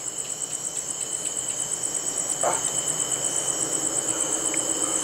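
Night insects chirping in a fast, even, high-pitched pulsing trill that runs without a break, with a steady thin whine lower down. A faint, short sound breaks in about halfway through.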